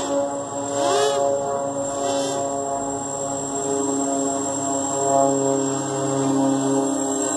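Quadcopter's brushless Emax MT2204 motors spinning 5040 bullnose propellers in flight, a steady whine. The pitch rises and falls quickly twice, about one and two seconds in, as the throttle is blipped.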